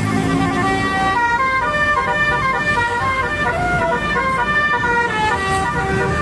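Telolet horn of an Indonesian bus: a multi-tone musical horn playing a tune, several tones sounding together and stepping up and down in pitch a few times a second, over a low rumble.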